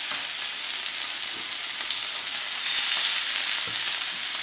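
Barramundi fillets sizzling skin side down in hot oil on a griddle pan: a steady frying hiss with a few faint pops.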